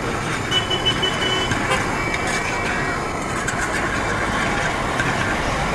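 Metal spatula scraping and clinking against a frying pan as egg bhurji is stirred over a gas burner, over a steady rumble of street traffic.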